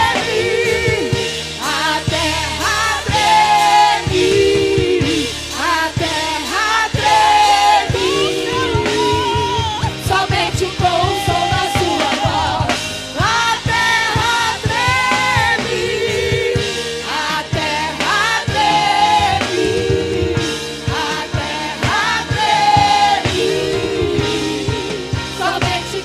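A vocal group singing a gospel worship song with band accompaniment and a steady drum beat.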